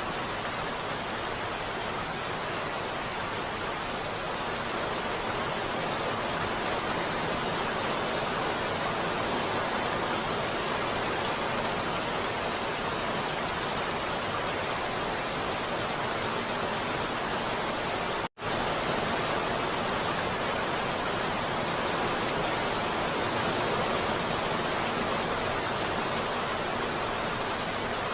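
Heavy rain falling in a steady, even hiss, with one split-second drop-out about two-thirds of the way through.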